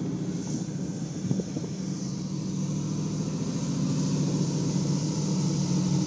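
Cars driving: a steady low engine and road rumble heard from inside the moving camera car, with the 1933 Ford roadster following close behind. It grows a little louder in the second half.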